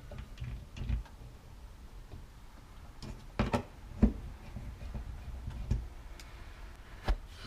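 Clicks and knocks of a plastic smoke-detector mounting plate and its screws being handled and fitted to a ceiling electrical box, with a few sharper knocks about three and a half, four and seven seconds in.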